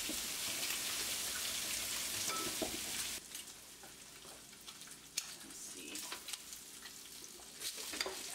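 Egg-soaked French toast slices sizzling on an electric griddle. The sizzle is a loud, dense hiss that drops sharply about three seconds in to a quieter sizzle with scattered crackles. Near the end a spatula scrapes under a slice to flip it.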